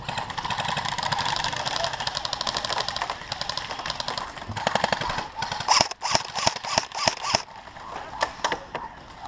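Airsoft guns firing: a long rapid full-auto burst lasting about three and a half seconds, then a run of louder single shots about five or six a second around six to seven seconds in, and a few scattered shots near the end.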